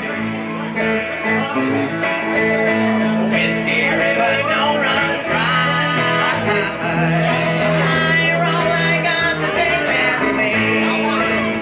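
Live country band playing an instrumental passage: electric guitar over upright bass and strummed acoustic guitar, at a steady level.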